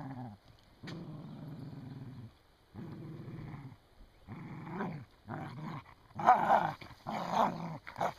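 Australian Shepherd and Border Collie play-fighting, growling: three long, low growls at first, then a run of shorter, louder, rougher growls in the second half.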